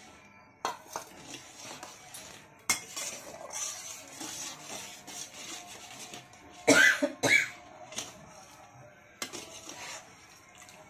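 Metal spatula scraping and knocking against an aluminium kadai as a thin tamarind sauce is stirred. There are several sharp clicks, and two louder sounds in quick succession about seven seconds in.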